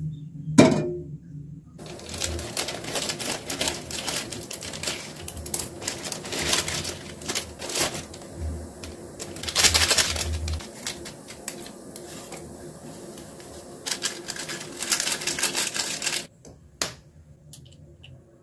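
Plastic instant-noodle packet crinkling and rustling in quick, crackly clicks as it is handled and torn open. There is one sharp knock about half a second in, and a single short click near the end.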